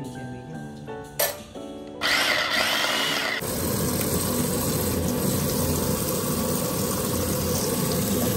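Background music, then a Kenwood mini food chopper whirring briefly about two seconds in. It is followed by tap water running steadily onto leaves in a plastic colander.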